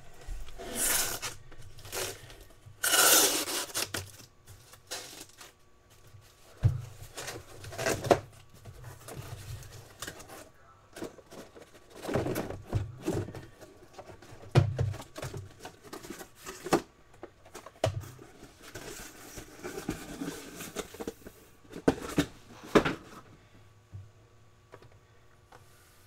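A taped cardboard shipping case being torn open and its sealed trading-card hobby boxes slid out and stacked: cardboard tearing and scraping, with a longer rip about three seconds in and several sharp knocks as boxes are set down.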